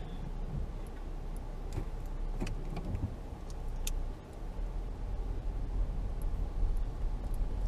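Steady low rumble of a car rolling slowly, heard from inside its cabin, with a few light clicks.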